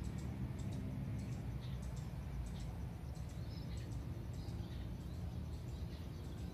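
Outdoor pond-side ambience: faint, scattered high chirps and short ticks of birds over a low, steady rumble.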